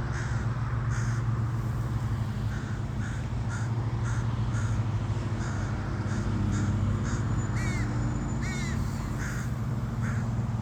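Crows cawing repeatedly, a dozen or so short calls, over a steady low engine hum that is the loudest sound throughout.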